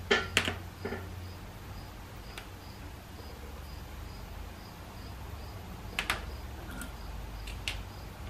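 A few light clicks and taps of small 47RE valve body parts being handled, the clearest about a second in and again near six seconds. Under them runs a faint high chirp that repeats evenly about twice a second, along with a low steady hum.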